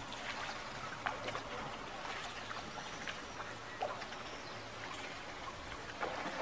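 Gondola being rowed: canal water lapping and trickling against the hull with small splashes and drips from the oar, a little louder near the end.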